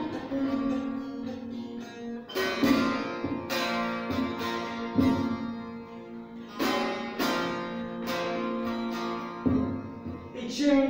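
Two bağlamas (Turkish long-necked saz lutes) playing an instrumental passage together, with sharp strummed strokes ringing out over a held, droning note.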